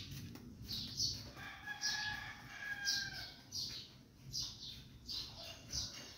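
A rooster crowing once, one long call of about two seconds, with short high bird chirps repeating about twice a second.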